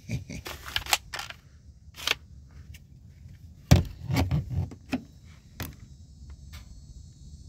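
Bug-A-Salt 3.0 salt gun being handled: scattered sharp clicks and knocks, the loudest nearly four seconds in with a few more close after it.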